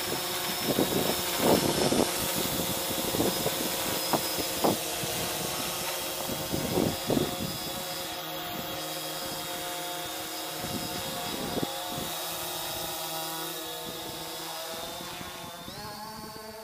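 Bayangtoys X21 brushless quadcopter hovering, its motors and propellers giving a steady multi-tone hum, with wind gusting over the microphone. Near the end the pitch rises and the sound fades.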